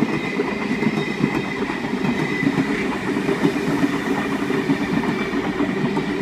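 Sydney Trains S set double-deck electric train running past along the platform, a steady rumble of wheels on rail with a faint steady whine above it.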